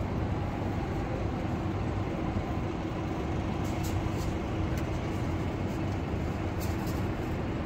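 Steady city street noise of traffic, with engines running and a faint steady hum that fades about five seconds in.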